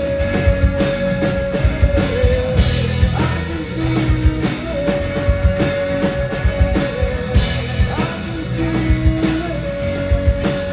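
Rock band playing, with drum kit and guitars, and long held melody notes of about two seconds each over a steady beat.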